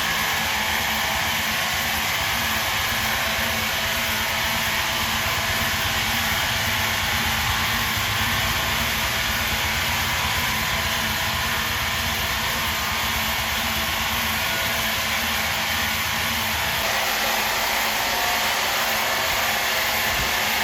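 Heavy machinery running steadily, a continuous mechanical noise with a low rumble that drops away about seventeen seconds in.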